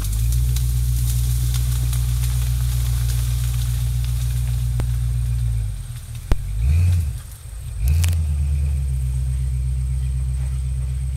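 Engine of a Halo Warthog replica off-road vehicle running as it drives through tall reeds and grass, a low steady rumble. The rumble dies away for about two seconds past the middle, with a single sharp click in the lull, then picks up again.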